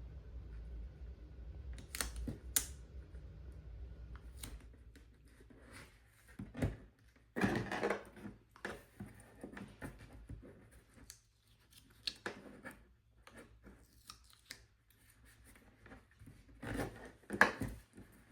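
A paper sticker being peeled off and re-pressed onto a planner page: scattered small clicks, taps and brief rustles of paper.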